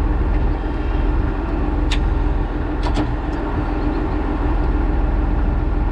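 Tractor engine idling steadily, with a few sharp clicks around two to three seconds in.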